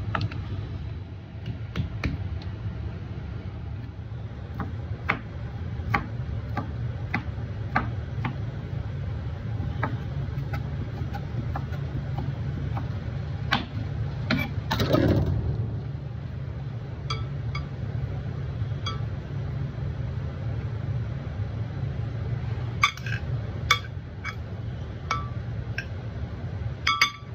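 Kitchen prep sounds over a steady low hum. A knife taps now and then on a plastic cutting board while dicing ham. Near the end a metal spoon clinks against a glass salad bowl as the salad is tossed.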